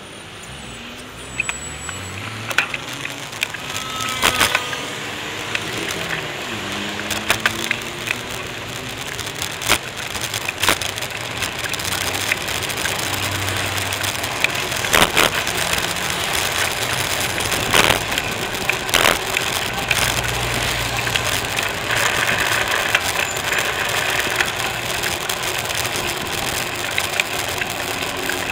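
Ride noise from a camera on a moving bicycle: tyres rolling over a paving-block and asphalt path, with many sharp clacks and rattles from bumps, under a steady hiss of wind and road traffic that grows louder after the first few seconds.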